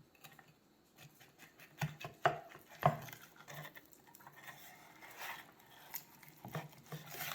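Metal utensils clinking and scraping in scattered short taps as the cooked steak is handled, with a few sharper knocks about two to three seconds in and near the end.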